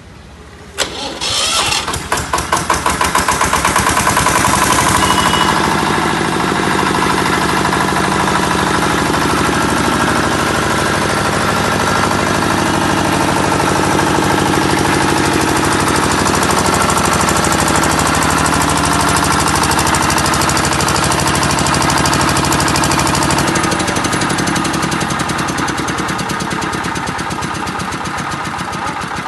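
A 5 kVA Bajaj air-cooled diesel generator set is electric-started. The starter cranks briefly about a second in, the engine catches within a couple of seconds and then runs steadily, its note shifting slightly lower and quieter about 24 seconds in.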